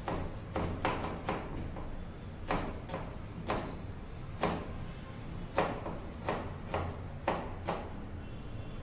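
Chef's knife cutting a vegetable on a plastic cutting board: a string of sharp knocks as the blade hits the board, unevenly spaced at about one or two a second.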